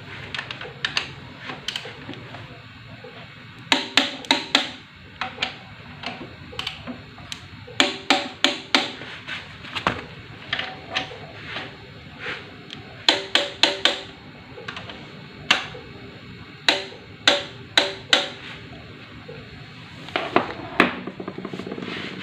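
Metal tools clicking and clinking on engine parts. The sharp metallic clicks come in quick runs of three to five, each with a short ring after it.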